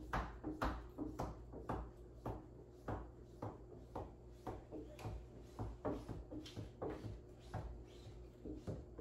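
Plastic squeegee swiping over wet window film on a glass door, in repeated short strokes about two a second, pushing the water out toward the corners.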